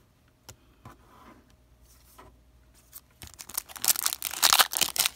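A foil trading-card pack wrapper being torn open and crinkled by hand. There are a few light handling clicks first, then dense crackling and tearing from about three seconds in.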